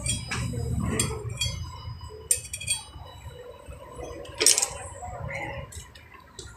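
Scattered metallic clinks and taps of hand tools and brake parts being handled at a motorcycle's rear wheel hub as the brake is taken apart, with one louder clink a little past the middle.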